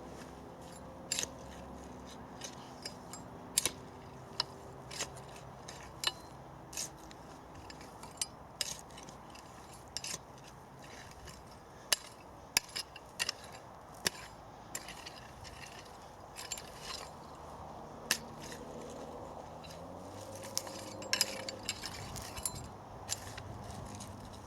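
Digging fork working through soil to lift potatoes: irregular scrapes and sharp clicks, a few every second or two.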